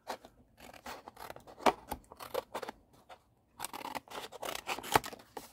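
Scissors snipping through kraft card packaging backing to cut out a sticker: a run of short crisp cuts, a brief pause about three seconds in, then more cuts.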